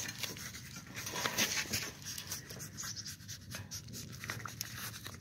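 Goat nibbling and chewing raw vegetable scraps, carrot peel and broccoli, from a hand: an irregular run of small crunches and rustles.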